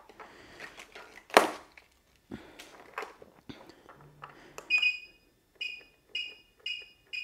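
Gotway RS-19 electric unicycle's buzzer giving five short high beeps about half a second apart, near the end, as its controls are worked to bring it out of transport mode and engage the gyros. Before the beeps come a few soft clicks and a sharp knock from handling the wheel.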